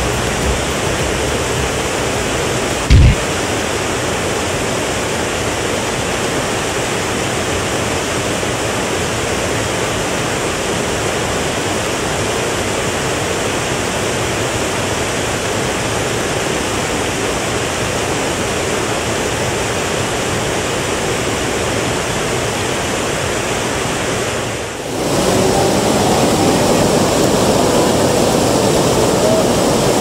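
Steady rushing of river water tumbling over a small weir and rapids. About three seconds in comes a single brief low thump, and near the end the rush drops out for a moment and returns louder.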